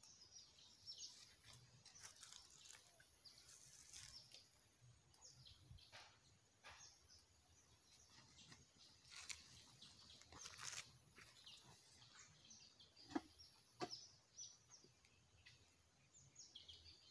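Near silence with faint birds chirping now and then, and two short sharp clicks late on.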